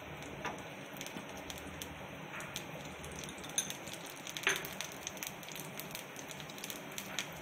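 Oil sizzling and crackling around a stuffed suji appam frying on a dosa tawa, with many small scattered pops.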